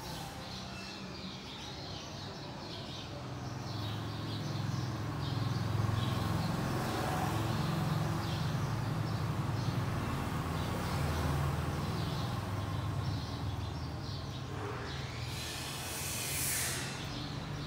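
Background ambience: a low steady rumble with faint, scattered bird chirps. About fifteen seconds in, a louder rushing sound swells and fades.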